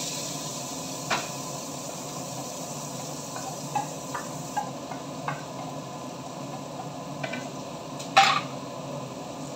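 Chopped onions dropped into hot oil in a frying pan, sizzling, with a wooden spoon tapping against the plate several times as it is scraped clean. The sizzle eases off after a few seconds, and a louder clatter comes near the end.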